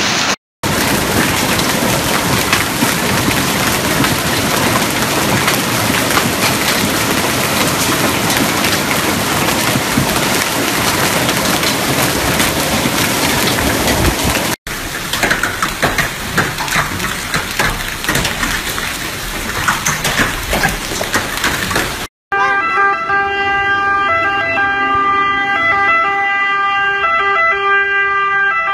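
Torrential rain pouring down in a dense, steady hiss; after a cut, hail pelting paving and foliage with many small clattering hits; then, after another cut, the steady tones of an emergency-vehicle siren.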